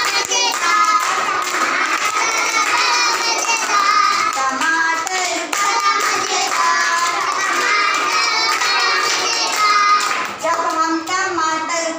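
A group of young kindergarten children singing a Hindi nursery rhyme together.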